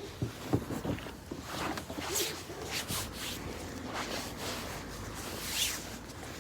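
Irregular rustling and scuffing footsteps outdoors.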